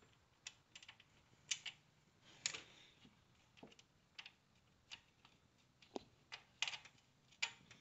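Faint, irregular clicks and light taps of hands and tools working at a car engine's cam angle sensor to unscrew and free it.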